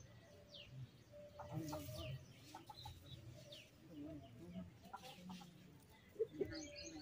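Faint farmyard bird sounds: a few short hen clucks, with small birds chirping in short falling notes.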